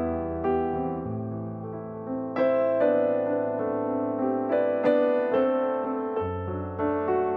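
Background music: a piano or electric piano playing a slow melody over sustained bass notes.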